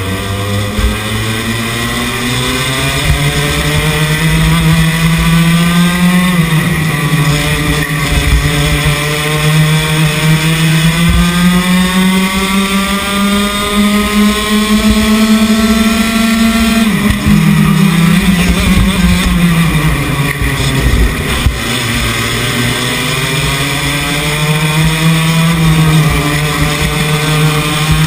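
Racing kart's two-stroke engine heard onboard at full throttle, its pitch climbing steadily down each straight and dropping sharply when the driver lifts for corners, about six seconds in, around seventeen seconds and again near twenty seconds, with wind rumble on the microphone underneath.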